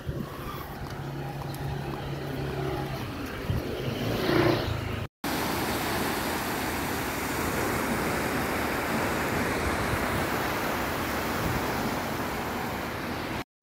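Street sounds with a vehicle engine hum that swells loudest about four seconds in, then a sudden cut to the steady rushing of small surf breaking on a sandy beach.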